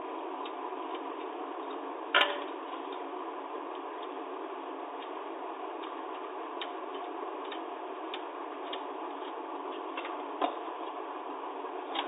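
Light mechanical clicks of a manual typewriter's keys and typebars being worked by hand, with a louder sharp clack about two seconds in and another near the end, over a steady background hiss.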